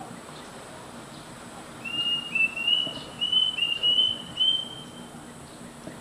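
Plaintive cuckoo singing a run of about six short clear whistles over some three seconds, the series edging up in pitch.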